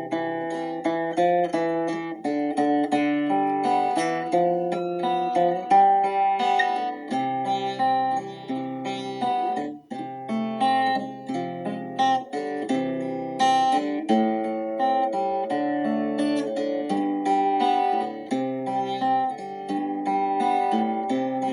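Instrumental acoustic guitar music, gently plucked and strummed notes over a bass line.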